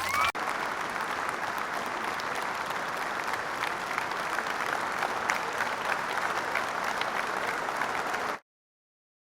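A steady, dense crackle of many small clicks, applause-like in texture, that cuts off abruptly into silence a little after eight seconds in.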